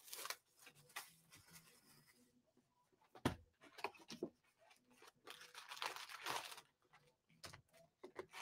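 Faint handling of a cardboard trading-card hobby box and its foil card packs: scattered rustling and crinkling, a sharp knock about three seconds in, and a longer stretch of crinkling around six seconds in as the packs are lifted out.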